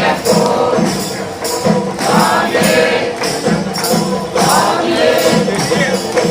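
Devotional music: voices singing over jingling percussion that keeps a steady beat.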